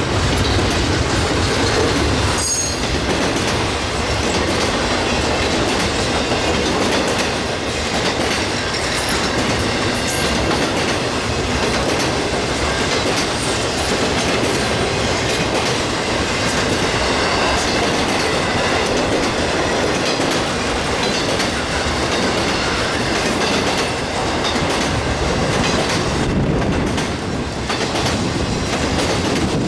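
Freight train cars rolling steadily past, steel wheels clicking over rail joints, with a brief high wheel squeal about two seconds in.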